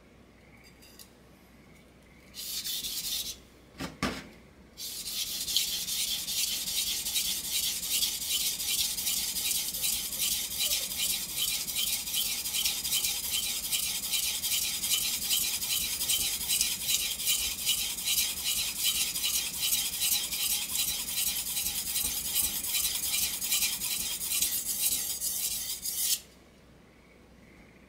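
Forged steel kitchen-knife blade stroked rapidly back and forth on a wet whetstone: a steady, rhythmic scraping hiss lasting about twenty seconds, which stops suddenly near the end. Before it, a brief scrape and a couple of knocks as the blade is set on the stone.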